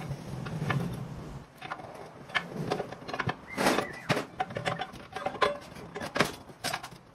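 Irregular metallic clinks and knocks of steel truck-transmission parts and hand tools being handled during a gearbox overhaul, one strike near the middle ringing briefly.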